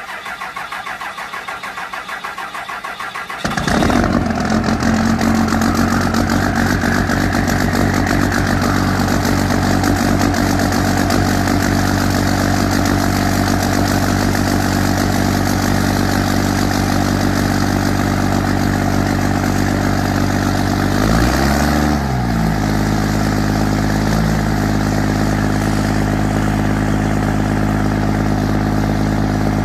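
Homemade diesel truck cold-starting: the starter cranks for about three and a half seconds, then the engine catches and settles into a loud, steady idle. A turbo whistle rises over the few seconds after it fires, and the engine pitch briefly rises and falls about 21 seconds in.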